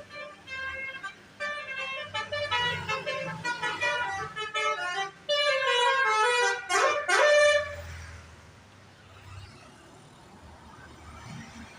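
Indonesian bus 'telolet' multi-tone horn playing a quick tune of short notes, then a long note that slides down and back up before cutting off about eight seconds in. After that only a faint low rumble remains.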